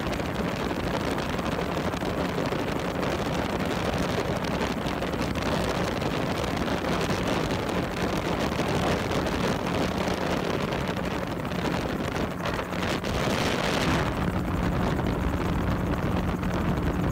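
Gyrocopter engine running steadily in flight, a low hum under heavy wind rush on the microphone. A louder rush of wind comes about twelve seconds in and lasts a second or two.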